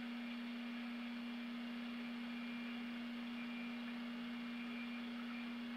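Room tone: a steady low hum over a faint even hiss, with no other sound.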